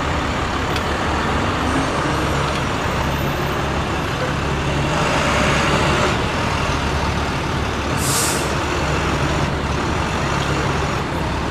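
Heavy diesel trucks (a snowplow truck and dump trucks) driving slowly past, their engines running steadily, with a short air-brake hiss about eight seconds in.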